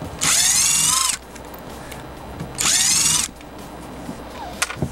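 Cordless drill-driver backing out stainless steel screws from a boat hatch's piano hinge: two short runs of the motor, each rising in pitch as it spins up and dropping as it stops. A few light clicks follow near the end.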